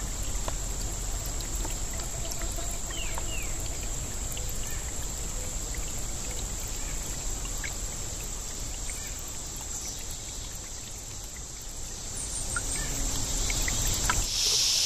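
Outdoor ambience: a steady high-pitched insect drone with a low rumble underneath and a few faint, short bird chirps about three seconds in.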